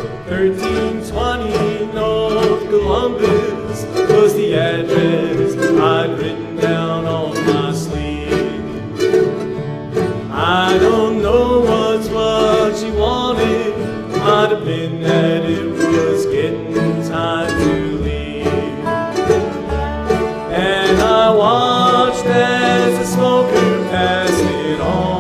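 Acoustic bluegrass band playing an instrumental break: banjo, mandolin, fiddle, acoustic guitars and upright bass together, with the lead line sliding up into notes several times.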